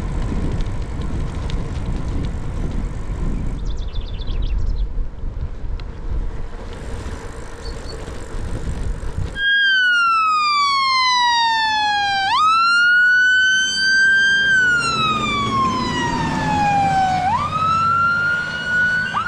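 A steady rushing noise, then, about halfway in, a fire engine's siren starts up loud. It wails in slow falling sweeps, each snapping quickly back up to a high held note, twice over, as the fire engine approaches.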